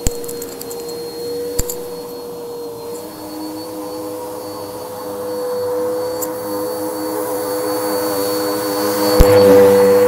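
Bagless upright vacuum cleaner running while pushed over thick shag carpet: a steady motor whine over rushing suction. There are sharp clicks at the start, at about a second and a half, and about a second before the end, where it gets louder.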